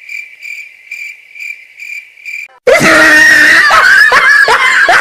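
Cricket chirping, a meme sound effect: one high chirp repeated about twice a second. About two and a half seconds in it stops, and a much louder, harsh, distorted sound with a wavering pitch cuts in.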